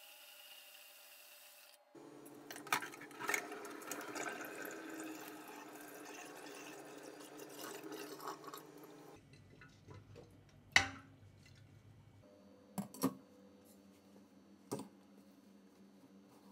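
Cold tap water running and splashing into a stainless-steel sink around a pot of hot wort, cooling it in a water bath, with a couple of clatters. The water stops about nine seconds in, followed by a few sharp knocks, the loudest about two seconds later.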